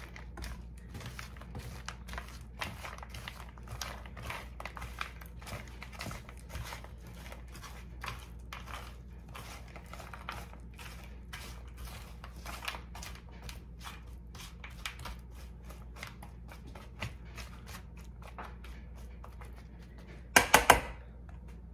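Kitchen tongs tossing seasoned raw steak, mushrooms, onions and green beans on a metal sheet pan: a steady run of irregular soft clicks and scrapes as the food is turned over, with a short louder burst near the end.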